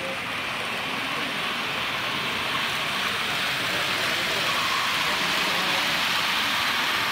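OO gauge model trains running on the layout's track: a steady rushing whirr of wheels on rail and small motors, growing slightly louder as the train nears.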